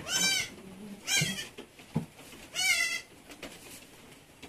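Newborn goat kid bleating three times, high-pitched and wavering, each call under half a second.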